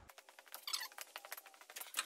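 Fast clicking and clattering with short squeaky chirps as an old Ford pickup's hood is raised and propped open with a pole.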